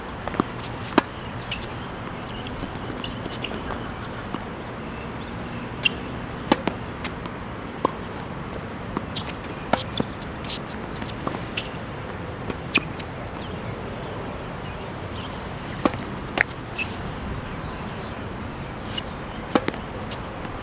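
Tennis ball struck by rackets and bouncing on a hard court: sharp single pops at irregular gaps of a second or more, over a steady outdoor background hum.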